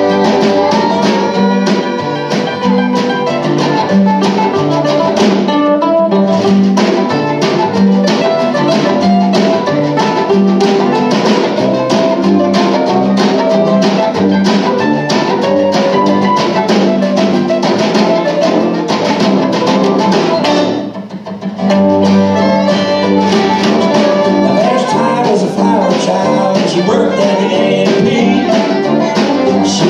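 Live acoustic string band playing an instrumental passage: fiddle, mandolin and acoustic guitar over a steady beat. The sound thins out briefly about two-thirds of the way through, then comes back in full.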